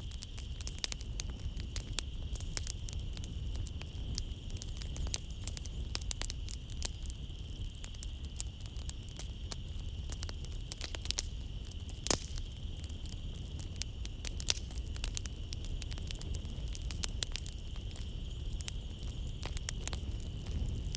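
Wood fire crackling in a fireplace: irregular sharp pops and snaps over a low rumble, with one louder pop about twelve seconds in. Behind it runs a steady high-pitched band of night-time nature sound.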